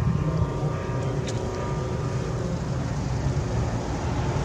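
Rotax 582 two-stroke engine and propeller of a Loehle 5151 Mustang ultralight replica running steadily in flight overhead.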